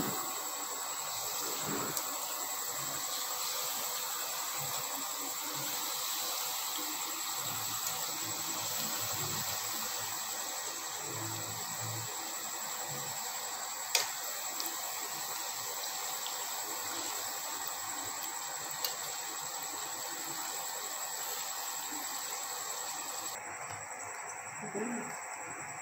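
Fuchka (small puris) deep-frying in hot oil in a pan: a steady sizzle, with a faint steady high tone over it and one sharp click about halfway through.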